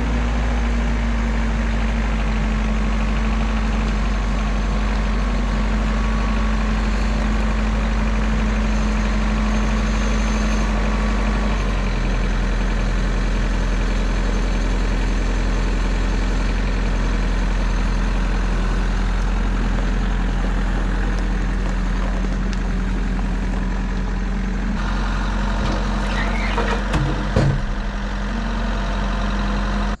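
Engine running steadily at idle, its pitch shifting slightly about twelve seconds in, with a few metallic clanks near the end.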